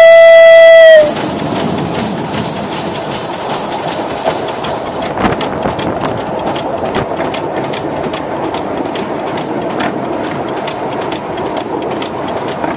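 Steam whistle of a 2-ft gauge Crown steam locomotive sounding one long, loud, steady note that cuts off about a second in. After it the locomotive runs on with a steady hiss and the wheels clicking over the track.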